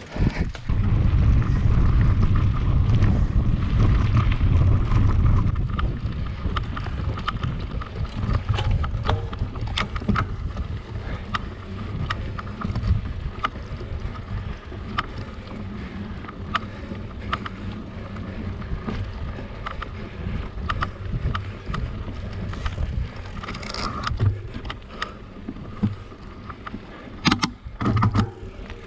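Wind rumbling on the microphone of a mountain bike being ridden, heaviest in the first six seconds. Frequent sharp clicks and rattles come from the bike over rough ground.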